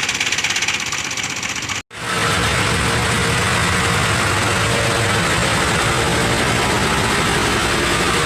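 Heavy machinery engine running steadily. Just under two seconds in, it cuts off abruptly for a moment, then comes back steady.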